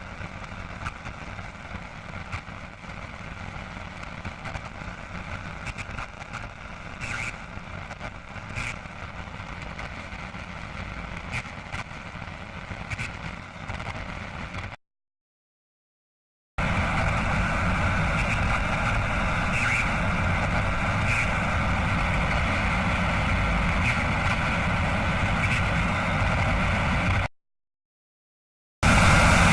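Two separate sound effects of steady rumbling noise, one after the other. The first is quieter, with scattered clicks, and stops after about fifteen seconds. After a short silence the second, louder and steadier, runs about eleven seconds and cuts off suddenly near the end.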